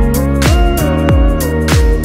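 Background music with a steady beat: a deep kick drum that drops in pitch about twice a second, under a sustained melody.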